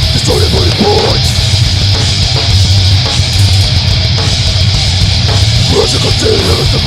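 Heavy metal music: loud distorted electric guitars over fast drums and bass, with short guitar lead figures.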